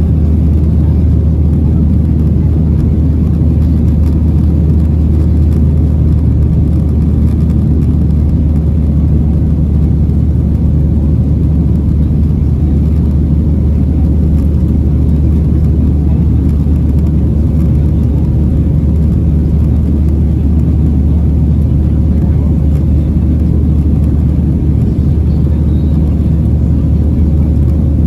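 Steady, deep cabin roar of a Boeing 737-800's CFM56-7B turbofan engines and the airflow during the climb-out, heard inside the cabin at a window seat beside the wing, with a faint steady hum above the roar.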